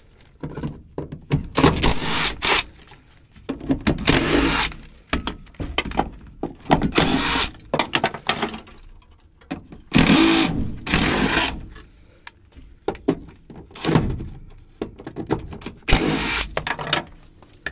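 DeWalt cordless drill-driver run in about six short bursts with pauses between, backing out the fasteners that hold a truck's steering column.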